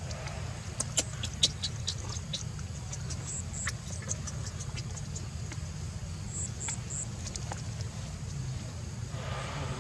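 Steady low rumble of background noise, like a distant engine, with scattered small clicks and ticks, bunched about a second in and again around four seconds in, and a short rush of noise near the end.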